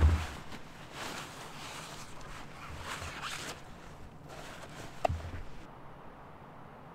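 Closed-cell foam sleeping pad being handled and pressed flat on a groundsheet over snow: bouts of rasping, rustling foam and boots shifting in snow, with a single knock about five seconds in. After that it drops to a faint hush.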